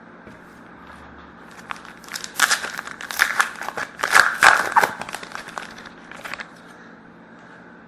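Crinkling and tearing of trading-card pack wrapping as it is ripped open and crumpled, in a flurry of crackles from about two seconds in, loudest just past the middle, then tapering off.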